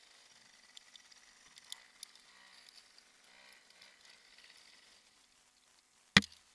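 Faint clicking and rustling of climbing gear, carabiners and rope being handled at a tree climber's harness. A single sharp knock about six seconds in is the loudest sound.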